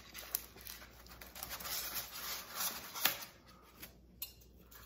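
Soft rustling and crinkling of clear plastic wrap being pulled off stainless steel griddle handles, the handles rubbing on styrofoam, with small clicks and one sharper click about three seconds in.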